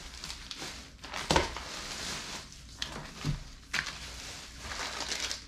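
Plastic snack wrappers and packaging crinkling as packaged sweets are handled, with three knocks as items are put down, the loudest about a second in.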